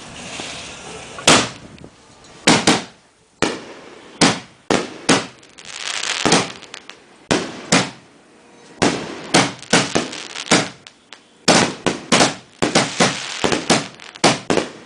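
Brothers Pyrotechnics Quest 60-gram canister shells firing one after another from an 18-shot HDPE mortar rack and breaking overhead. It is a string of sharp booms at uneven intervals, coming faster and closer together in the second half.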